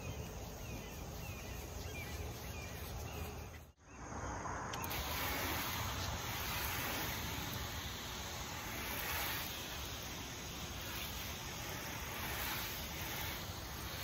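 Insects chirping over the faint rubbing of a wet cleaning sponge on a plastic headlight lens. After a cut about four seconds in, a steady hiss of water spraying onto the headlight and car front to rinse it.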